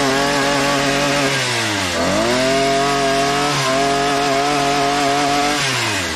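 Small two-stroke engine of an Einhell petrol multi-tool with its Oregon bar-and-chain pole-saw attachment, held at full throttle while cutting a branch. The revs dip and pick up again about two seconds in, then fall away toward idle near the end.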